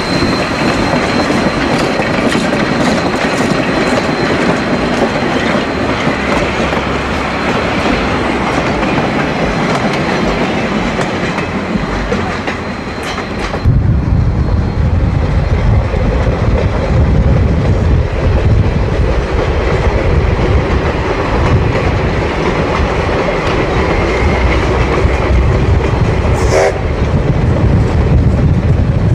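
Sierra Railway No. 3, a 4-6-0 steam locomotive, rolling by close up with its wheels and running gear clattering on the rails. About halfway through the sound cuts abruptly to a heavy low rumble from a car pacing the train, with the train still heard beneath it.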